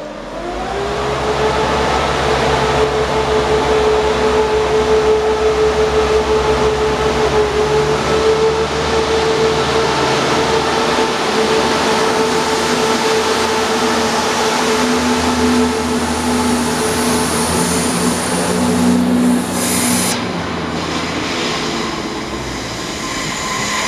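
ScotRail Class 170 Turbostar diesel multiple unit pulling out under power: its diesel engines and transmission give a steady whine that climbs slightly as it starts and then holds, over a low rumble as the coaches pass close by.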